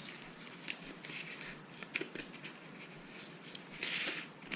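Handling noise of accessories being unpacked: soft rustling and light clicks as two leather straps are worked out of their packaging, with a louder rustle about four seconds in.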